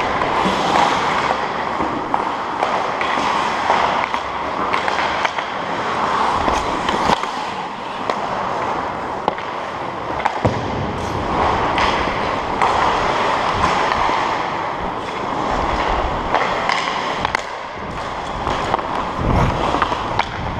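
Hockey skate blades scraping and gliding on the ice in swelling strokes. Sharp clicks of sticks and puck are scattered throughout.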